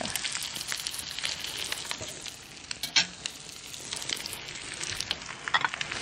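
Food sizzling steadily in a frying pan, with a few sharp clinks of utensils and dishes, the loudest about three seconds in.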